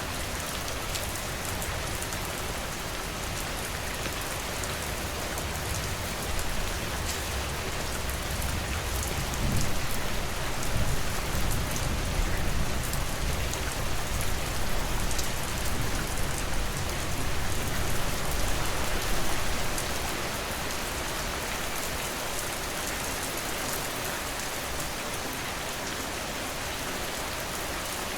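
Steady rain falling, an even hiss with the patter of individual drops. A low rumble swells in for about ten seconds in the middle, then fades back.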